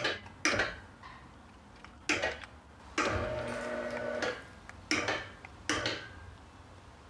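A few sharp clicks and knocks, and about three seconds in the retractable screen reel's tubular motor runs for just over a second with a steady hum, turning the reel into position.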